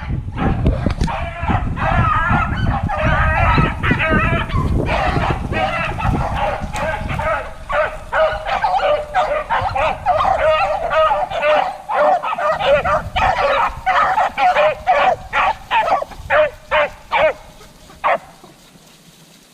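A pack of beagles baying on a rabbit's trail, many overlapping voices at once, with a low rumble underneath for the first several seconds. Near the end the cries break into separate short barks and then stop.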